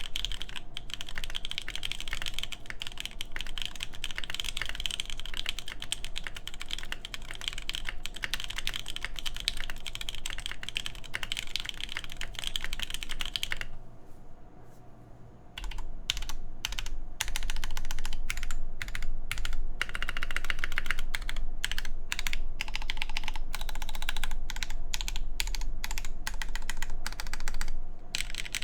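Mechanical keyboard typing: an AKB Petrichor with an FR4 plate, DCS keycaps and Durock Lavender switches lubed with 205g0. A fast, steady stream of keystrokes breaks off about halfway for a second or two, then picks up again louder, with more separate strokes.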